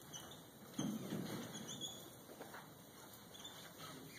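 Dry-erase marker squeaking on a whiteboard in short strokes as words are written, with one louder, short, low sound about a second in.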